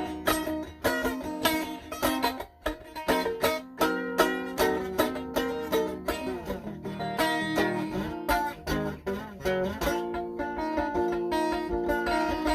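Guitar played note by note in a quick run of plucked melody, with a few notes sliding in pitch around the middle.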